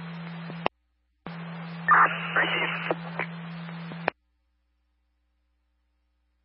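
Public-safety radio scanner audio. An open transmission's hiss and steady low hum cut off abruptly, then after half a second another transmission keys up, carrying a few short unintelligible bursts. It ends with a squelch click about four seconds in, leaving silence.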